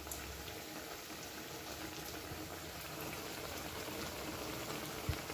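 Chana dal fritters deep-frying in hot oil in a kadai: a steady sizzling and bubbling of the oil, with a soft thump near the end.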